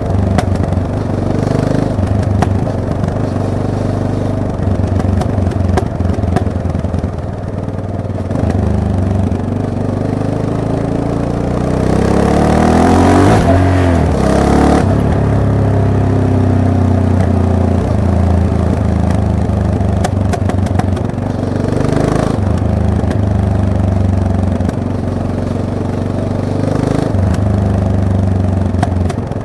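Yamaha MT-03 motorcycle engine running at low revs as it is ridden, with one rise and fall in revs about halfway through.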